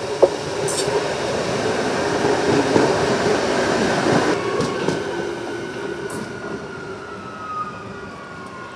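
Adelaide Metro 4000-series electric train passing close by: its rolling noise swells to a peak a few seconds in and then fades, with a sharp click near the start. Then a whine slides slowly down in pitch.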